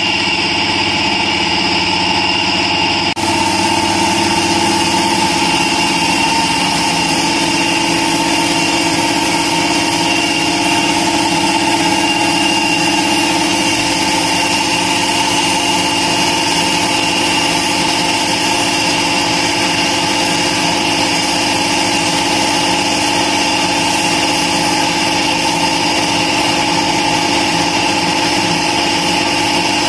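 Shop air compressor running steadily with a held hum, and from about three seconds in the constant hiss of a gravity-feed air spray gun spraying paint onto a car's rear fender.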